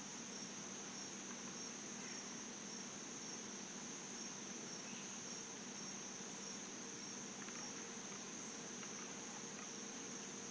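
Steady chorus of insects: one continuous high-pitched drone that holds level throughout.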